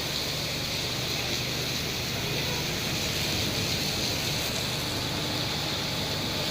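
Heavy monsoon rain pouring down, a steady even hiss with no break.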